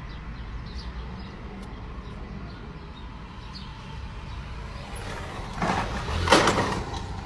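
Low steady rumble of a car idling, heard from inside the cabin. Near the end a louder rushing noise swells up twice.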